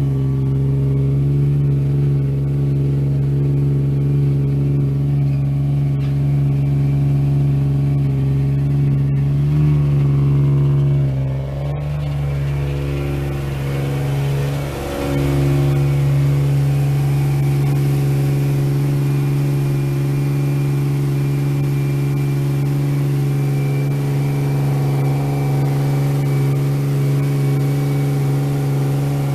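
Single-turbo Nissan VQ35DE 3.5-litre V6 of an Infiniti G35 idling steadily, its loudness dipping briefly twice around the middle.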